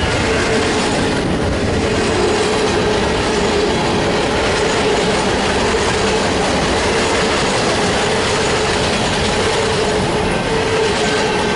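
Freight cars of a passing Union Pacific mixed freight train, double-stack container well cars and covered hoppers, rolling past close by. Steel wheels clatter and rumble on the rail without letting up, and a thin, steady whine runs over it.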